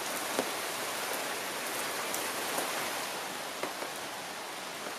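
A steady rain shower hissing down, with a few single drops ticking close by. It eases off slightly in the second half.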